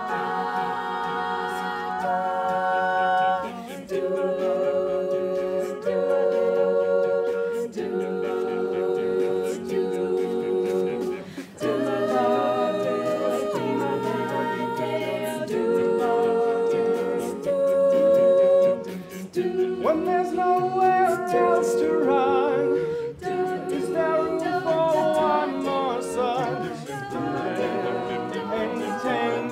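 Music: wordless vocal harmony in the style of an a cappella group, holding chords that change every second or two.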